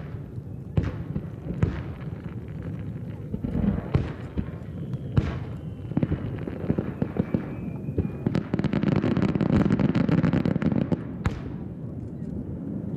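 Aerial fireworks shells bursting far off: a series of separate booms that echo, then about eight seconds in a dense crackling barrage lasting about three seconds.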